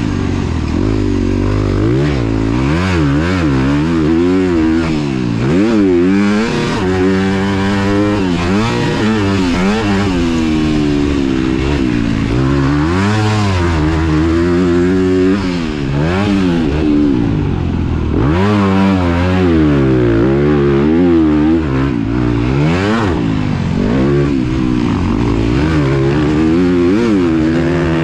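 Honda CRF250R's single-cylinder four-stroke engine being ridden hard, revving up and dropping back over and over as it accelerates and shifts gears.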